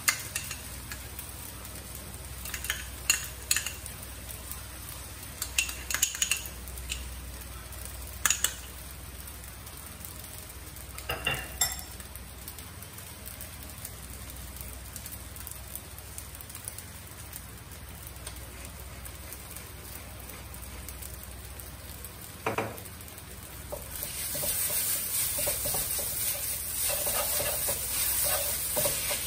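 Food sizzling in a frying pan while a spatula stirs it, clinking and scraping against the pan in scattered strokes during the first twelve seconds. The sizzle grows louder about twenty-four seconds in.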